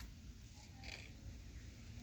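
Kittens purring faintly, a low steady rumble, with a brief soft sound about a second in.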